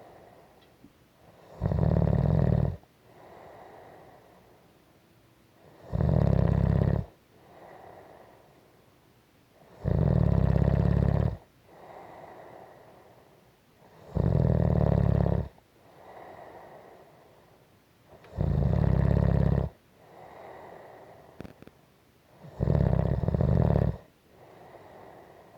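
Slow, regular snoring: six loud snores about four seconds apart, each lasting a little over a second, with a softer breath between them.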